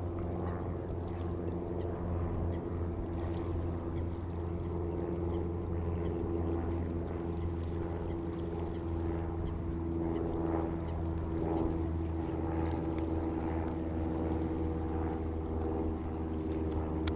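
Steady low drone of an engine running at an even speed, with no change in pitch.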